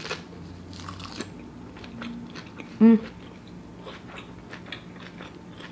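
A person chewing a mouthful of nori-wrapped vegan sushi bake, with small crisp crunches in the first second or so. A short, loud hum from the eater comes about three seconds in.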